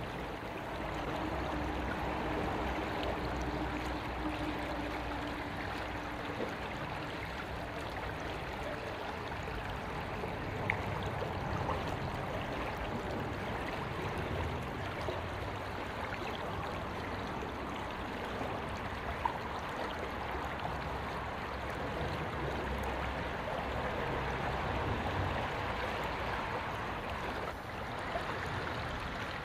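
River water flowing and lapping along a stony bank, a steady rush, with a low rumble that swells and fades beneath it. There are two faint clicks, about a third and two-thirds of the way through.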